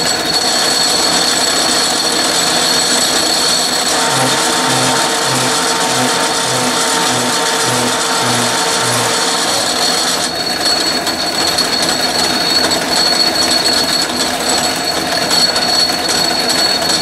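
Atlas lathe running while a boring-bar threading tool cuts an internal thread in steel, chattering in the cut. Through the middle of the pass a low pulsing about twice a second and a steady tone sound over the machine's running noise; the chatter is a sign of the lightweight lathe and a deep threading cut.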